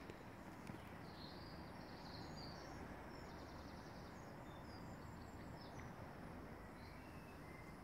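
Faint, steady outdoor background noise with scattered short, high-pitched bird chirps, mostly in the first five seconds.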